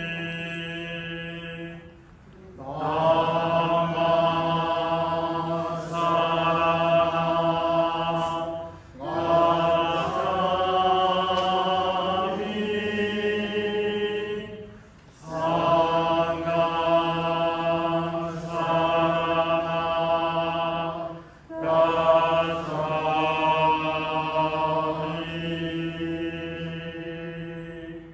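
Jodo Shinshu Buddhist chanting in long, held, sung phrases, broken by short pauses for breath about every six seconds.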